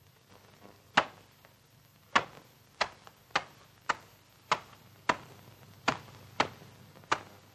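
Boots stamping on seabird eggs, a sharp crack with each stamp as the shells break, about ten in all at an uneven pace. The first, about a second in, is the loudest.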